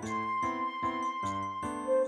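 Background music: a gentle instrumental tune of bell-like and flute-like synthesized notes with a steady pulse.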